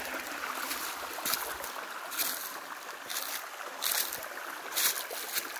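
Small creek trickling steadily over rock, with about five crunching footsteps on dry leaves and stony ground, roughly one a second.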